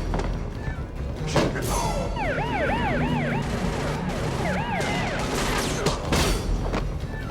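Police siren wailing in quick rise-and-fall sweeps, in two spells, over a dense, steady rumble and noise.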